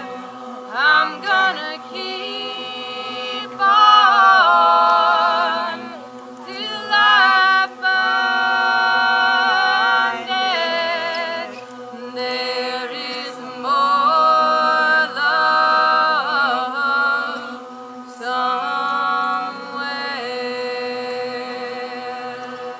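A group of voices singing a cappella, with no instruments: melodic phrases that rise and fall, sung in several pauses over a steady held low note.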